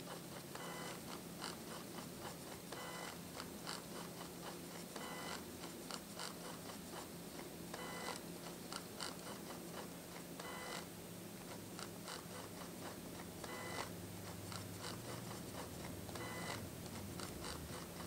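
Nikon SB700 speedlight's zoom-head motor whirring faintly in a quick string of short runs, each a fraction of a second, as the head zooms in and out over and over. It is a low-pitched zoom whir, typical of the Nikon flashes, and quiet enough to peak at about 29 dB on a phone meter.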